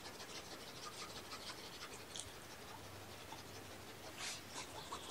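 Faint, quick scratching and rustling of a finger on the fabric of a cushioned pet bed, with one louder scratch about four seconds in.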